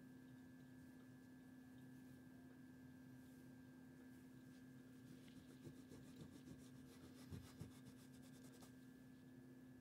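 Near silence under a steady electrical hum. In the second half, faint rubbing and a few light taps as the 1941 Argus AA camera is cleaned by hand.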